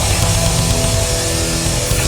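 Loud live hardcore punk band playing an instrumental rock number, with distorted electric guitars over a dense, pounding low end.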